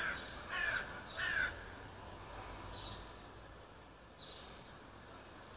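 A crow cawing three times in quick succession, about half a second apart. It is followed by fainter short chirps from smaller birds.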